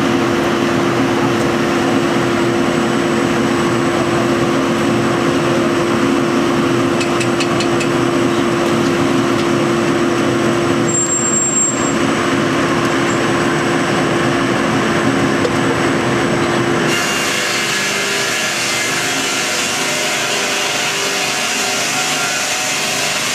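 Sawmill line machinery running: electric motors and the chain infeed conveyor feeding a log toward the red cutting head, a loud steady mechanical noise with a constant hum. About three quarters of the way through the sound changes character as the log reaches the cutting head.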